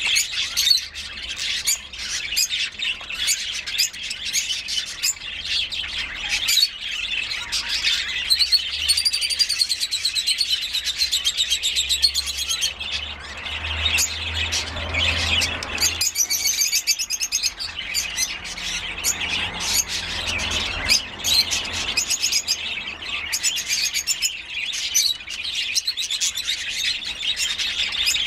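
Rosy-faced lovebirds chattering in a rapid stream of high, squeaky chirps, with clearer whistled notes about nine seconds in and again about sixteen seconds in, as a pair mates.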